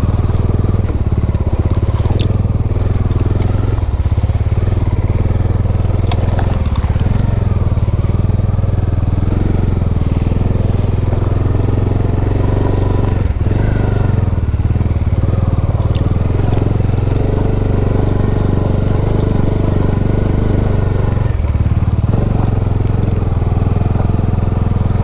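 Motorcycle engine running steadily at low revs on a rough off-road descent, with the crunch and clatter of tyres and chassis over loose stones and gravel.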